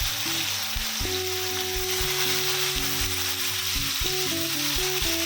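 Onions sizzling steadily as they fry in hot oil in a pan.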